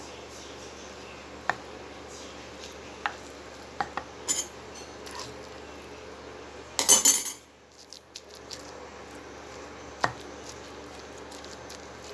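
Wooden pestle crushing steamed tempe in a wooden mortar: scattered sharp knocks of wood on wood, with a louder clatter about seven seconds in.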